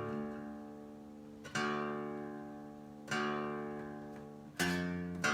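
Guitar strummed in single chords, three strokes about a second and a half apart, each left to ring out and fade. The guitar has just been retuned to drop D, and the chords are checking that tuning before the song.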